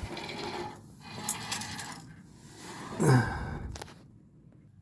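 Metal parts of a car's parking brake cable and hook rod being handled: light clinking and rattling, with a sharper click about a second in and a louder knock about three seconds in, then it goes quiet.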